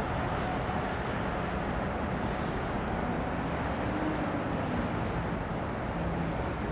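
Steady low engine rumble with wind noise on the microphone.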